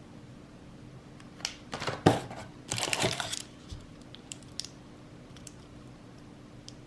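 Plastic snack wrappers crinkling as they are handled, in a few short bursts over about two seconds, followed by a few light clicks.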